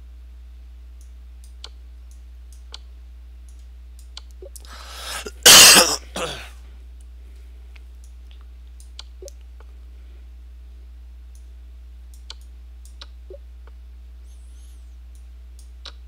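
A man coughs and clears his throat once, about five seconds in, the loudest sound here. Around it are scattered single computer-mouse clicks.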